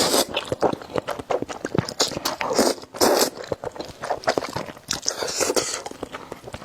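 Eating spicy noodles: several noisy slurps with wet chewing and quick mouth clicks in between.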